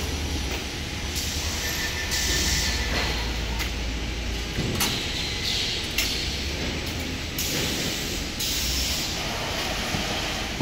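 Automatic ceiling-board packaging line machinery running: a steady low hum with several short hissing bursts and a couple of sharp clanks.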